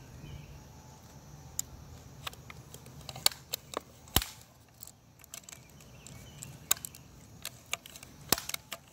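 Scattered sharp clicks and knocks from a pump BB gun being handled, at irregular times, the loudest about four seconds in.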